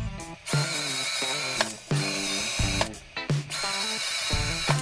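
Cordless drill boring holes into a pallet-wood board, running in three bursts of about a second each with short pauses between, its motor giving a steady high whine over the noise of the bit cutting wood.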